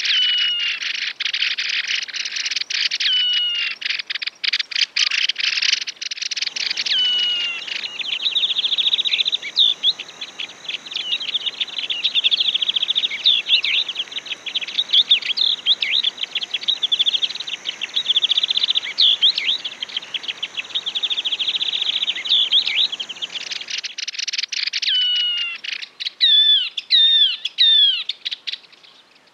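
Yellow-eyed babbler singing: fast chattering notes mixed with repeated clear downslurred whistles, with a rapid trill through the middle. A hissy background comes in abruptly about six seconds in and cuts out again about five seconds before the end, where the recording is spliced.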